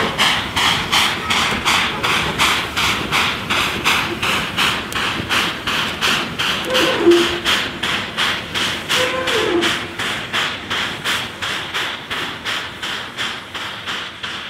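A pair of JS class 2-8-2 steam locomotives chuffing steadily as they pull away under load, about three exhaust beats a second, fading as they draw off. Two short falling squeals are heard twice in the middle.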